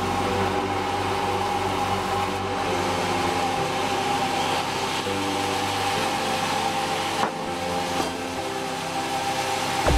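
Sawmill machinery running steadily: an engine hum with a steady whine over it, and two short knocks about seven and eight seconds in.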